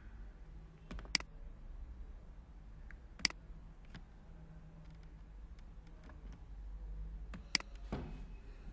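Computer keyboard keys pressed: three sharp clicks, about a second in, after about three seconds and near the end, with a few fainter ticks between, over a low steady hum.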